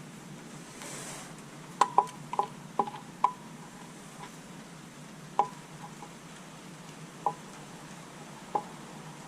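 Hand tools and metal engine parts clinking as they are handled, about eight sharp, irregular metallic clicks with a short ring. A brief hiss comes about a second in.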